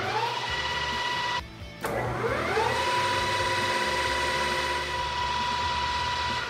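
Helfer T330x1000 metal lathe spinning its chuck up to speed: a whine rises and levels off into a steady high tone, breaks off suddenly about a second and a half in, then rises again and runs steadily. The lathe is running properly after its start-up troubles.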